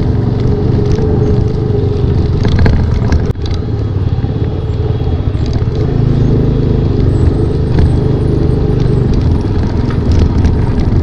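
Benelli TRK 502X's parallel-twin engine running at low speed as the motorcycle is ridden through mud, with scattered rattles and clatter from the bike over the rough track. The sound drops for a moment about three seconds in.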